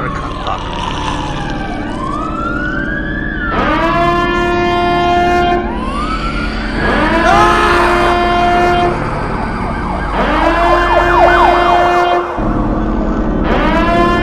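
An emergency siren wailing up and down, cut across by four long, steady horn blasts about three seconds apart.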